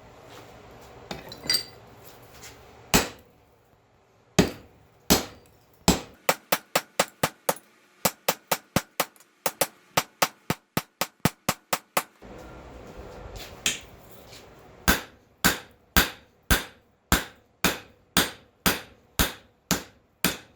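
Hammer blows ringing on a hot steel billet of cable damascus and bandsaw-blade steel, drawing it out. After a few light clinks come quick runs of about three blows a second, a short pause just past the middle, then steady blows about two a second.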